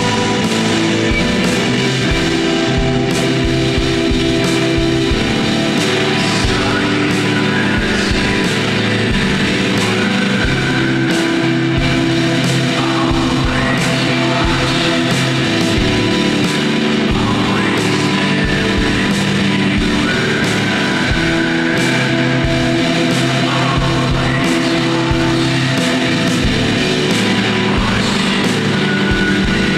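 Shoegaze noise-rock music: fuzz-distorted electric guitars in a dense, loud, unbroken wall of sound over a steady drum beat.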